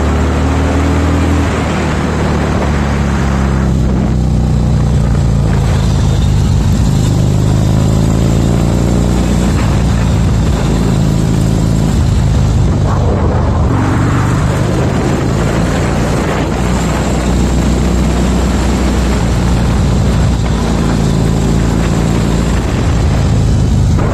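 1979 Harley-Davidson Ironhead Sportster's air-cooled 1000 cc V-twin running under way on the road, its note rising and falling with the throttle several times.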